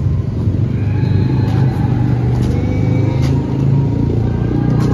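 A steady low rumble, with a few short thuds of a rubber ball being kicked and stopped with the inside of the foot, the first right at the start.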